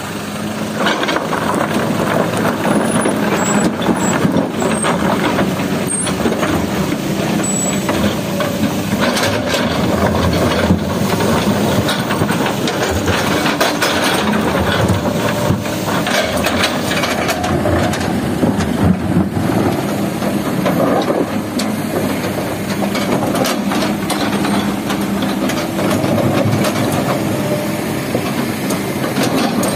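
Kobelco hydraulic excavator's diesel engine running steadily under load, with irregular clattering and knocking of broken rock as the bucket scoops it from the pile and dumps it into a steel dump-truck bed.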